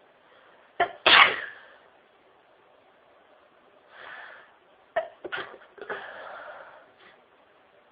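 A woman sneezing during a sneezing fit: one loud sneeze about a second in, then a breath in and a second sneeze that comes out in several short catches and a longer blast between about five and seven seconds.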